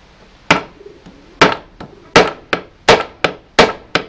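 Claw hammer driving a nail into a wooden board: sharp strikes, the first two about a second apart, then quickening to about three a second, heavier and lighter blows alternating.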